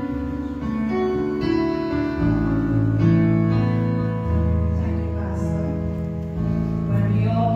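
Instrumental background music, likely a keyboard, playing slow held chords that change about every two seconds.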